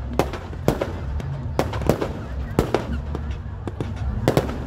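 Fireworks going off in an irregular string of sharp bangs and cracks, roughly two a second, over a steady low rumble.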